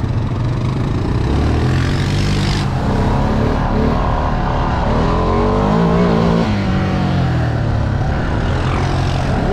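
Off-road vehicle engine revving up and down as it rides through mud, its pitch rising and falling repeatedly. A hissing spell cuts off suddenly under three seconds in.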